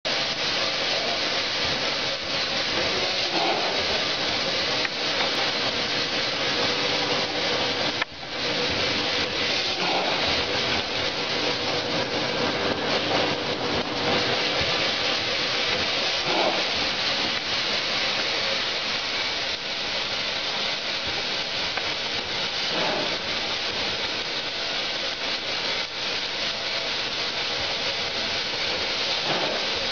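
Vertical form-fill-seal packaging machine running: a steady mechanical hiss and rubbing noise, with a faint pitched sound that comes back every few seconds as the machine cycles through each bag.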